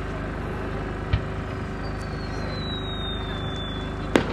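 Fireworks: a low launch thump about a second in, then a thin whistle falling slowly in pitch for nearly three seconds, and a sharp burst crack near the end, over a steady low rumble.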